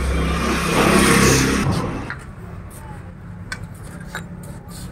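A motor vehicle passing close by, its engine and road noise swelling to a peak about a second in and fading away by two seconds. A few faint clicks follow.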